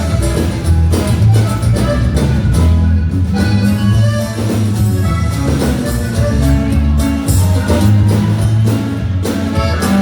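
Norteño band music playing without singing, an instrumental passage with a strong, steady bass line under a melody of held notes.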